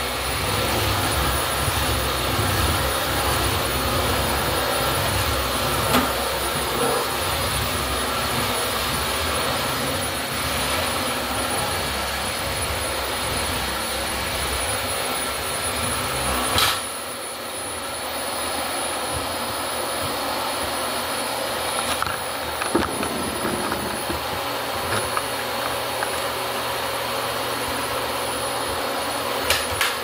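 2008 Dyson DC25 Animal upright vacuum cleaner running on a vinyl floor, a steady rush with a constant high whine. About two-thirds of the way in, a sharp clunk comes as the machine is stood upright, and the low rumble drops away, leaving the motor's whine and a few small clicks.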